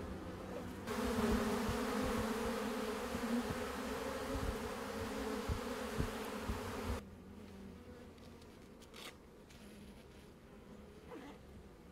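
Many honey bees buzzing together in a steady hum of wings. About a second in the buzz swells abruptly, and about seven seconds in it drops off sharply to a quieter hum.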